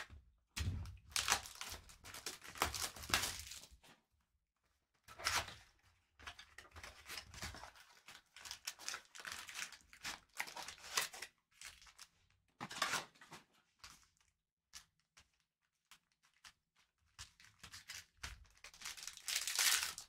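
Bowman's Best baseball card pack wrappers being torn open and crinkled, in several bursts of tearing a second or a few seconds long with short pauses between.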